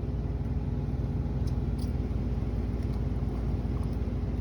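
A motor running steadily, a low, even rumble with a fine rapid pulse and a faint constant hum above it.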